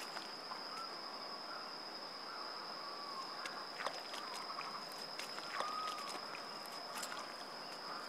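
Swamp ambience: a steady, high-pitched insect drone, one unbroken tone, with faint short chirping calls recurring every second or so and a few scattered light clicks.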